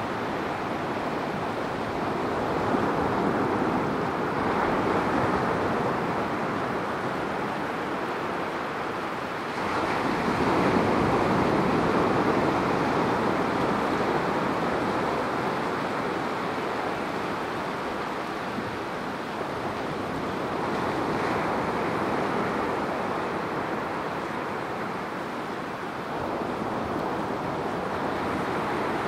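Atlantic surf breaking and washing up the sand around a rock jetty. It is a steady rush that swells and eases with each set of waves, loudest about ten seconds in.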